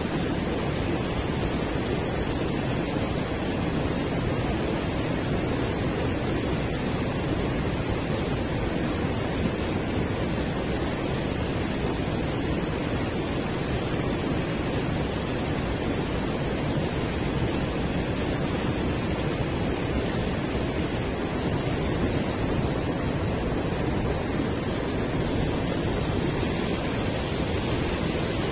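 Steady rush of river water pouring over a low concrete weir.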